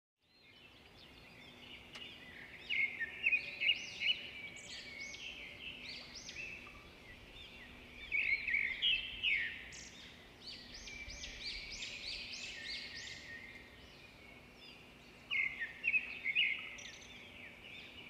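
Small birds chirping in quick runs of high, up-and-down notes, coming in several clusters over a faint steady hum.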